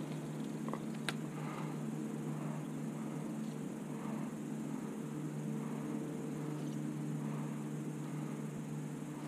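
Electric bow-mounted trolling motor running with a steady low hum, with a light click about a second in.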